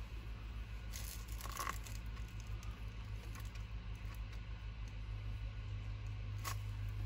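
Small handling noises at a workbench: a short rustle about a second in and a single sharp click near the end, over a steady low hum.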